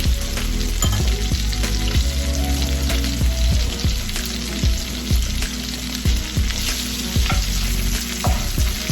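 Chicken breast fillets sizzling steadily as they fry in butter in a pan, with small crackles through the hiss; the meat is nearly cooked through.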